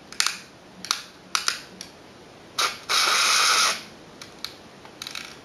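Toy car making a noise: a run of sharp plastic clicks and rattles, with a loud hissing whir lasting under a second about three seconds in.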